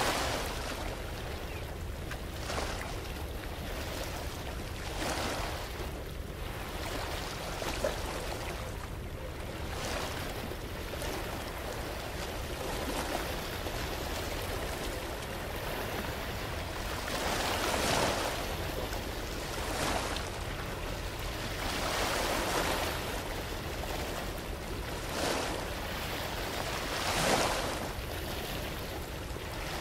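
Soundscape of hissing, surf-like noise that swells and fades every two to three seconds, with the strongest swells in the second half.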